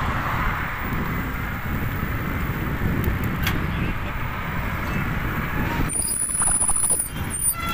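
Wind buffeting the microphone of a phone carried on a moving bicycle: a steady low rumble with road noise. A faint high whine comes in briefly near the end, and a sharp knock follows it.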